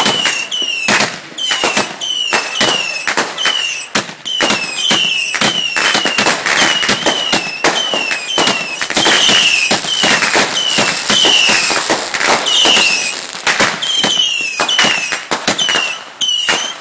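Consumer fireworks going off in a rapid string of sharp bangs and crackles, several a second. Short falling whistles repeat about twice a second over the bangs.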